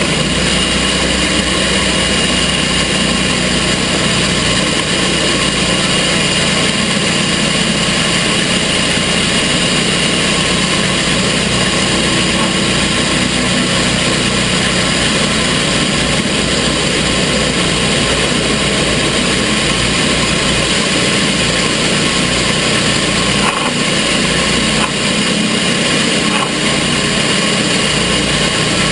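Gas engine of a TimberKing portable sawmill running steadily at an even speed.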